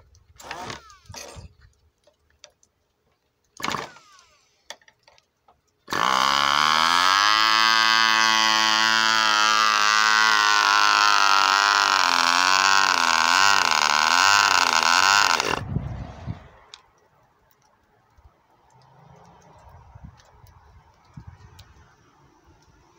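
Brief bursts from an electric starter, then about six seconds in a Cox .15 Medallion model glow engine, with a custom ABC cylinder and run without its tuned pipe, catches and runs loudly for about ten seconds. Its pitch climbs as it catches and wavers a few times near the end before it cuts out suddenly.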